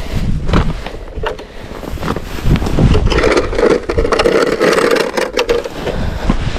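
Boots crunching on snow-covered lake ice, with knocks and rustles of clothing as someone walks up to an ice-fishing hole and crouches over it. A steady drone joins in for a couple of seconds about halfway through.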